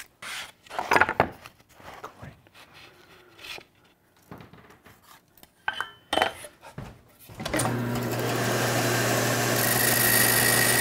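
Scattered knocks and scrapes of wood and hand tools being handled, then a bandsaw motor starts suddenly about three-quarters of the way in and runs steadily with a low hum.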